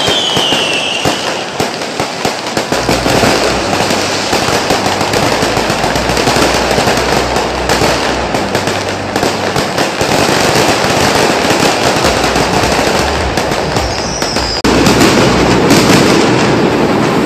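Fireworks going off at close range: a dense, continuous crackle of rapid reports with a short whistle at the start and another near the end. About three-quarters of the way through, the sound cuts abruptly and turns louder.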